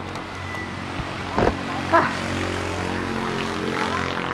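Motorcycle engine running steadily while riding, with two brief loud sounds about one and a half and two seconds in.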